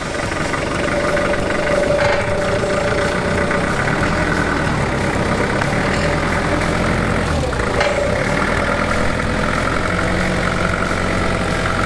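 Forklift engine running steadily, with a few short knocks about two and eight seconds in.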